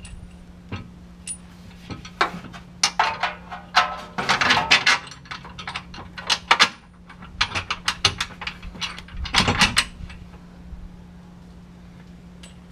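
Loose metal hardware clinking and knocking: bolts with flat washers and the steel receiver hitch being handled while the hitch is fitted up to the bumper. It is a run of sharp clinks, thickest in the middle, that stops about ten seconds in.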